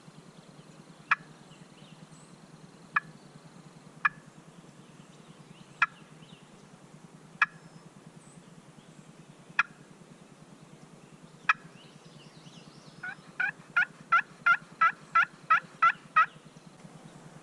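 Hen turkey sounds made on a hunter's turkey call: seven single sharp clucks a second or two apart, then a quick yelp sequence of about a dozen notes near the end, calling to a gobbler.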